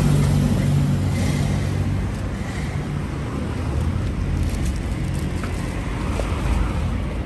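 Street traffic with a vehicle engine running nearby: a steady low hum that eases off after about two seconds. Faint clicks and rustling come from crate straps being handled.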